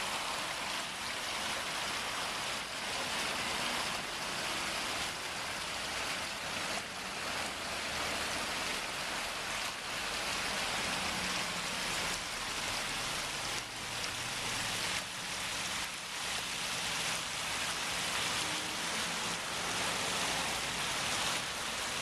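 Water spilling down a six-tier garden waterfall into a stream and pond: a steady splashing rush.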